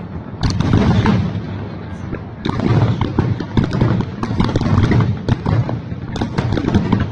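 Aerial fireworks going off, many bangs and crackles in quick succession over a heavy low booming.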